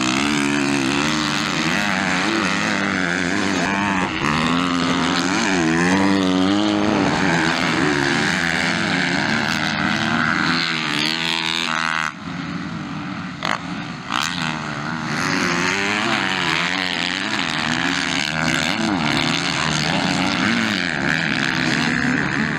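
Motocross bike engines racing on a dirt track, revving up and down through the corners and jumps, their pitch rising and falling over and over. The sound dips and changes abruptly about halfway through.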